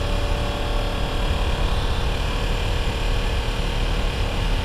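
Motorcycle engine running steadily at low speed, mixed with a heavy, uneven wind rumble on the helmet microphone.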